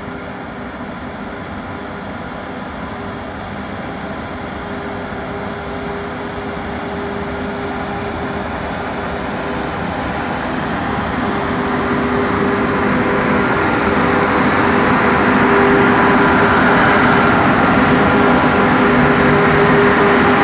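Mitsubishi-built Renfe class 269 double electric locomotive approaching and passing at the head of a freight train, a rumble with a steady hum of several tones that grows steadily louder until it levels off about three-quarters of the way through, as the locomotive comes alongside.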